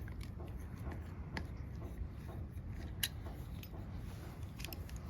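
A few light, sharp clicks from a stainless steel folding multitool being handled, its tools folding and locking, over a faint steady background. The loudest click comes about three seconds in.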